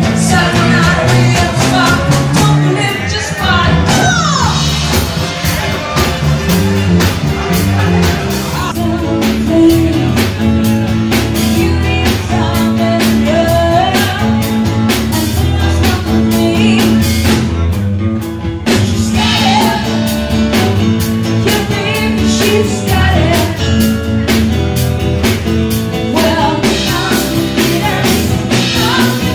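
Live rock band playing: drum kit, bass guitar and electric guitar, with a woman singing over them. The level drops briefly about two-thirds of the way through.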